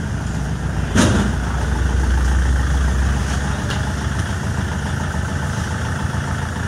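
Kubota L4508 tractor's diesel engine idling steadily, with a sharp metallic knock about a second in. The engine runs with a heavier low rumble for a couple of seconds after the knock.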